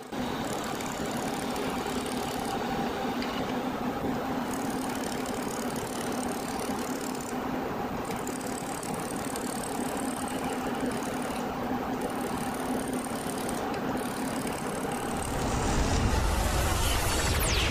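Laser welding machine running with a steady hum and a low drone. About fifteen seconds in a deeper rumble comes in, and near the end a whoosh sweeps quickly down in pitch.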